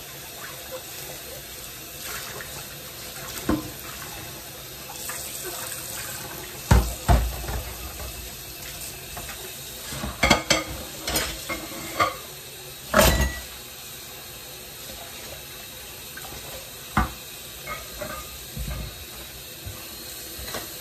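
Kitchen tap running into a stainless steel sink as dishes are washed by hand, with a steady flow of water and repeated knocks and clinks of bowls and utensils, thickest in the middle few seconds.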